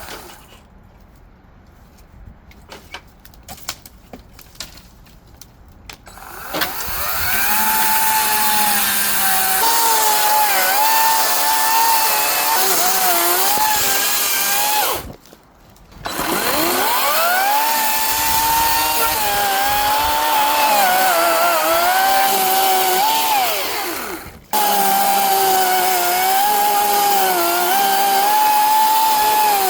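Battery-powered Ego electric chainsaw running and cutting brush, a high motor whine that dips and wavers in pitch as the chain bites into wood. It stops for about a second midway and then starts again. Before it starts there are a few seconds of scattered light clicks and knocks.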